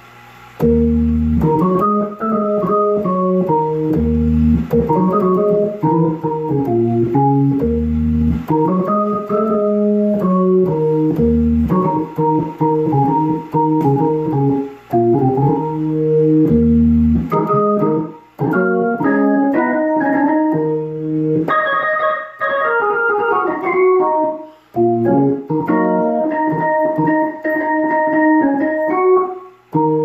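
Hammond C-3 tonewheel organ played through a restored Leslie 147 rotary speaker cabinet. Full chords with a moving upper line start about a second in, with low bass notes under them for the first half, then give way to shorter, detached chords.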